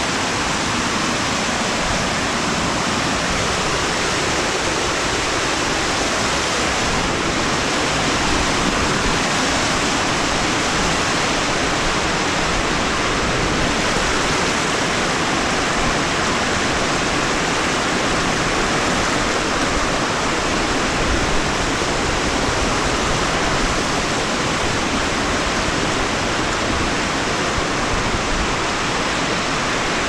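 Small waterfall cascading down rock into a creek: a steady, unbroken rush of water.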